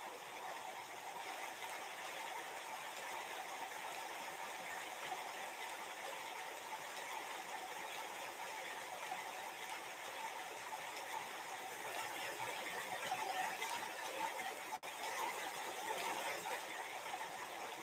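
Steady room noise: an even hiss and hum with no speech, a little louder near the end, with a momentary dropout about fifteen seconds in.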